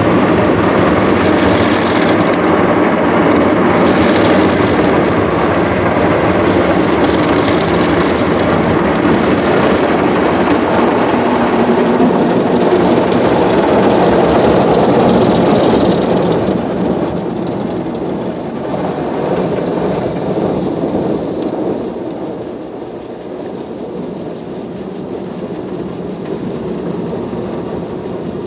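Rotating cloth brushes of a PDQ Tandem Surfline automatic car wash scrubbing against the car body and windows, with water spraying, heard from inside the car's cabin as a loud, steady wash of noise. It gets quieter a little past halfway and stays at that lower level.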